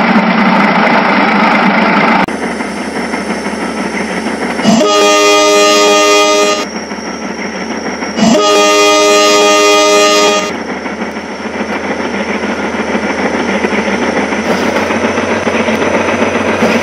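Battery-powered toy trains running on plastic track with a steady motor whir. Two loud electronic train-horn blasts, each held about two seconds, sound a few seconds in.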